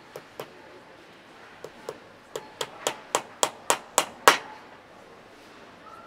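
A cobbler's hammer tapping a shoe held on a shoe last, about a dozen sharp strikes. After two early taps comes a steady run of about three a second, each strike louder than the last, ending on the hardest blow about four seconds in.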